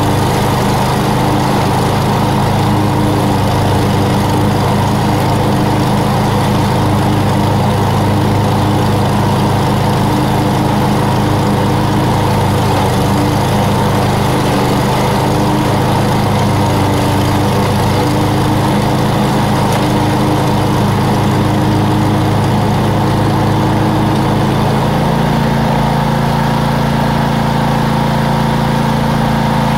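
Lawn mower engine running steadily, close and loud. About 25 seconds in, its note shifts to a slightly different, clearer pitch.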